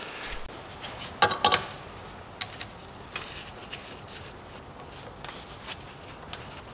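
A few light metallic clinks and knocks as a custom welded thermostat housing is handled and fitted by hand against a Saab B204 engine block, the loudest cluster, with a brief ring, about a second in.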